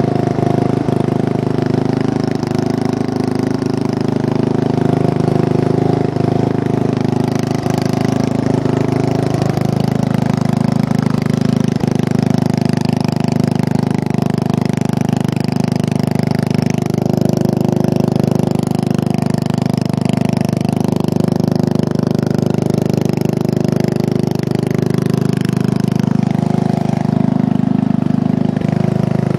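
Riding lawn mower engine running steadily as the mower drives through shallow water, its front wheels splashing. The engine note shifts slightly about ten seconds in.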